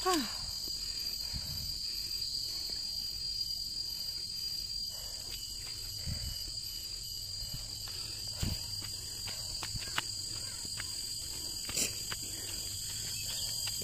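Steady high-pitched chorus of forest insects, with a few scattered crunches of footsteps on a dry, leaf-strewn gravel path.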